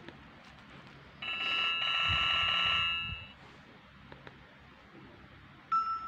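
Nokia 105 phone's built-in speaker playing ringtone previews while scrolling the ringing-tone menu. A bright trilling ring sounds for about two seconds from about a second in, then a different ringtone begins near the end, with faint keypad clicks between.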